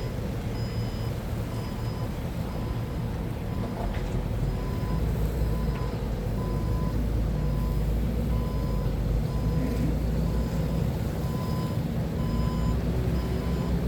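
Forklift engine running, with its reversing alarm beeping in a steady repeating pattern; the engine gets louder about a third of the way in.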